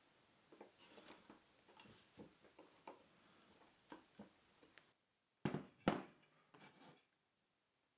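Faint scattered clicks and taps of small metal clips and screws being handled and turned by hand on a wooden frame. About five seconds in, a handheld power drill drives a screw into the hardwood frame in two short loud bursts, then a softer third one.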